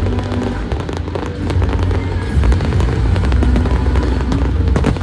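Fireworks crackling and popping in quick succession, over a heavy low rumble and a loud musical soundtrack playing at the same time.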